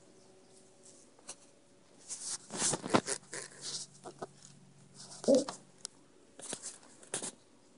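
Blankets rustling as a sleeping Shiba Inu puppy is disturbed, in two spells of scuffling. About five seconds in comes one brief vocal sound from the puppy, the loudest moment.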